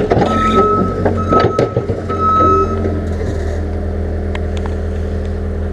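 John Deere 324G skid steer's diesel engine running steadily, with a beeper sounding in short, regular beeps that stop about three seconds in. A few light clanks come from the machine and its pusher box.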